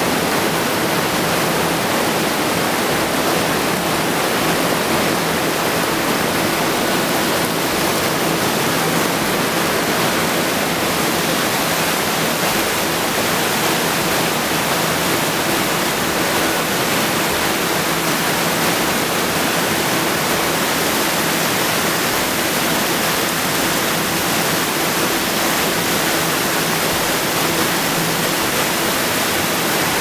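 Steady, loud rush of a rocky forest stream cascading over boulders in a small waterfall.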